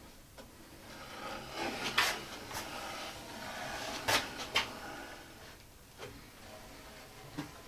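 Wood glue being squeezed from a plastic glue bottle along the edges of a wooden frame: soft squirting and rubbing with a few sharp clicks and knocks of the bottle and hands on the wood, the loudest about two and four seconds in.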